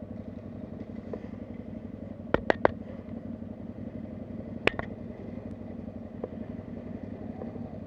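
Quad bike (ATV) engine running steadily, with a few sharp clicks over it: three in quick succession about two and a half seconds in, and one more near five seconds.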